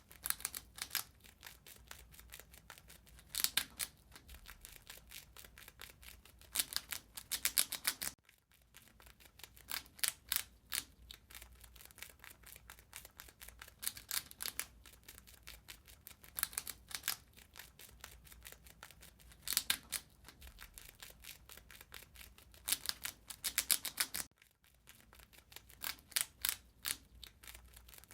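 Rat eating: rapid, crisp crunching and gnawing clicks in irregular bursts, with louder flurries every few seconds and two short pauses.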